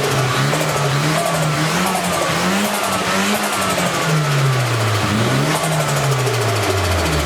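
Nissan Silvia S15's turbocharged SR20DET four-cylinder revved in several short blips while parked, its pitch rising and falling each time. The blow-off valve is deleted, so each lift-off gives a little turbo flutter (compressor surge), though with only about 1 psi of boost.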